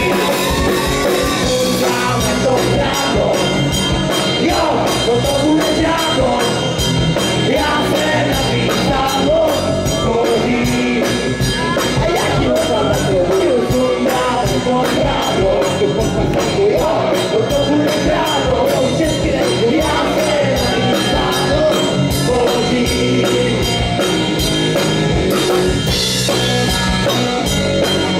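Live rock band playing: a male singer over electric guitar and drum kit, with a steady beat.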